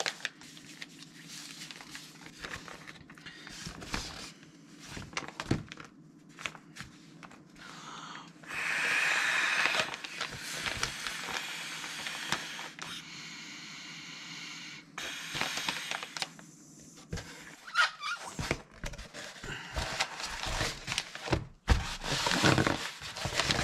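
Packaging rustling and plastic handling as a Klymit V Seat inflatable cushion is unwrapped. About a third of the way in come several long breaths blown into its valve to inflate it, the first the loudest, followed by clicking and handling of the filled cushion near the end.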